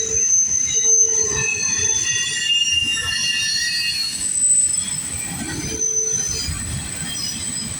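Steel wheels of a passing double-stack container train squealing against the rails: several high squeals overlap, start and fade as the cars roll by, over the low rumble of the train.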